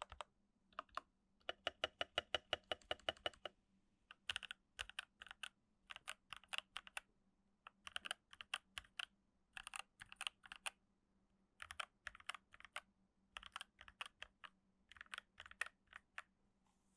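Keychron K8 mechanical keyboard fitted with FFF switches lubed with Krytox 205g0 and filmed, with foam added inside, being typed on. The keystrokes come in short bursts with brief pauses between them, and about two seconds in there is a fast, even run of louder presses.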